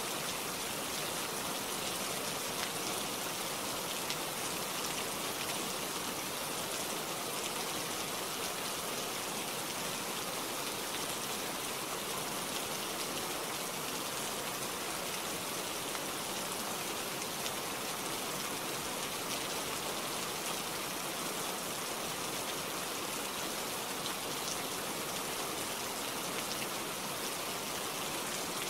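Steady rain falling, an even hiss with a few individual drops ticking now and then.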